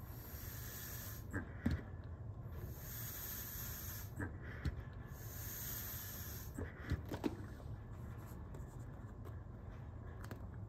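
Bag-valve-mask resuscitator being squeezed to ventilate an infant manikin: three hissing puffs of air in the first six seconds, about two seconds apart, with light plastic clicks and rustles from the valve, mask and reservoir bag. The puffs stop about halfway through, leaving only a few handling clicks.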